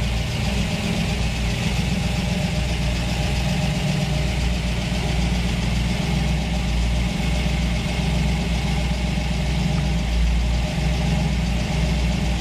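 1962 Chevrolet Corvette 'Fuelie', its fuel-injected 327 V8 idling steadily.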